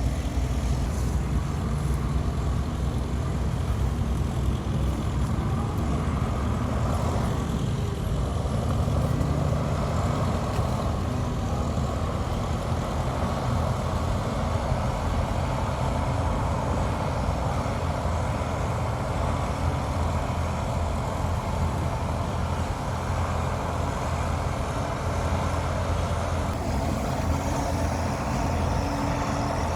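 Heavy diesel earthmoving machinery, a bulldozer and dump trucks, running steadily with a continuous low engine note.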